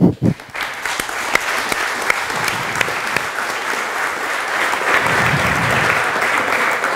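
Audience applauding: many people clapping, building up within the first second and then holding steady.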